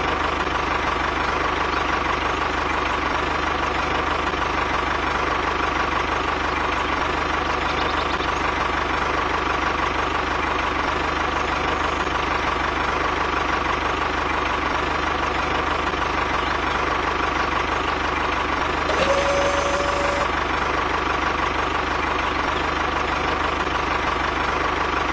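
Tractor engine running steadily at one even speed throughout. A short, higher tone sounds for about a second roughly three-quarters of the way through.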